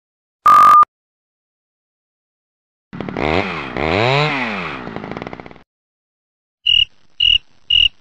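A short, loud censor beep: a single steady tone lasting under half a second. Then a chainsaw runs for about two and a half seconds, its pitch rising and falling as it is revved. Near the end come three short cricket chirps.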